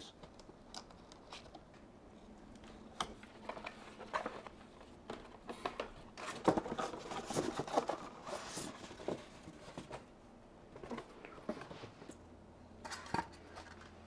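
Cardboard packaging handled by hand as the box is opened: scattered quiet scrapes, rustles and light knocks of the lid and inner packaging.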